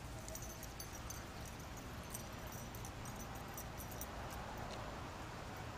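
Dog collar tags jingling in faint scattered clinks as two dogs run and play, over steady low background noise.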